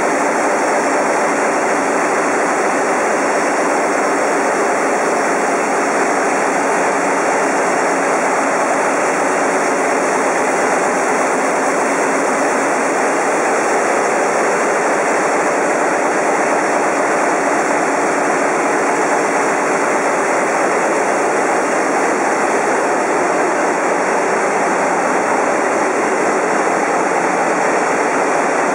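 Ship's engine-room marine diesel engines and their turbochargers running, a loud, steady machinery noise that does not change.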